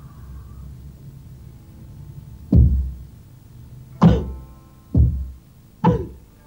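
Four sharp percussion strikes, each with a deep boom that dies away and a little ringing above it, roughly a second apart and starting a couple of seconds in. Before them there is only a low steady hum.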